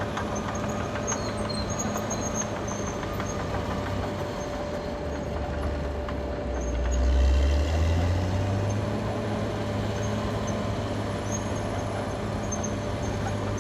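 Caterpillar D6R XL bulldozer's diesel engine running steadily, its note swelling louder for a second or two about seven seconds in.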